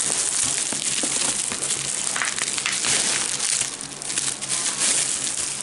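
Packing material crinkling and rustling loudly as beer glasses are unwrapped from their packaging, easing off briefly a little before the fourth second.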